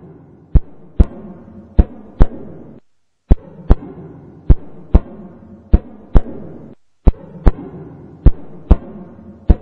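Heartbeat sound effect: paired lub-dub thumps, the pairs coming about every 1.2 seconds, over a low hum. The sound cuts out briefly twice.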